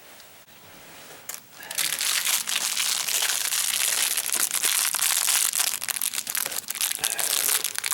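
Packaging being handled: a dense crinkling and crackling that starts about a second and a half in and keeps going.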